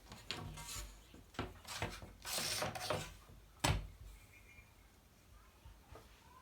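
Cloth and tools handled on a cutting table while blouse fabric is marked out: a few short rustles and scrapes, one longer scraping stroke, and a sharp knock a little past the middle.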